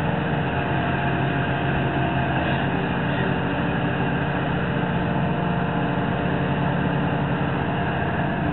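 Large tracked excavator's diesel engine running steadily, a continuous low hum.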